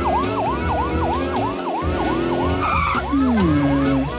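Cartoon police car siren sounding a fast, repeating yelp, about three sweeps a second, over a backing track. A second, lower tone slides downward a little after three seconds in.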